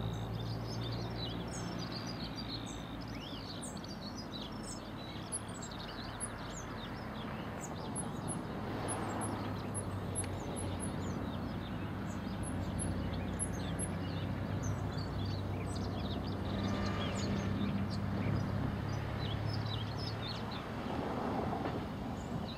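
Male pied flycatcher singing short phrases of high, quick notes, mixed with other birdsong, over a steady low mechanical hum.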